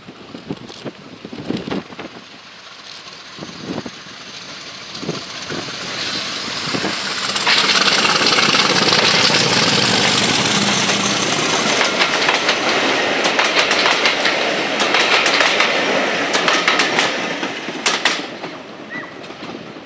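Class 50 diesel locomotive 50 015 'Valiant' passing at speed with a train of coaches. Its engine grows louder as it approaches and is loudest as the locomotive goes by about eight seconds in. The coaches' wheels then click over the rail joints before the sound fades near the end.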